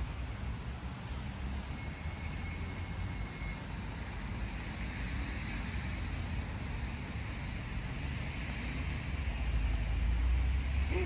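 Steady hum of distant city road traffic, with a low wind rumble on the microphone that grows stronger near the end.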